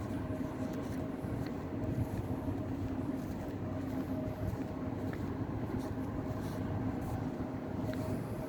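Nissan Grand Livina's HR15DE 1.5-litre four-cylinder engine running steadily at an even idle, with no revving.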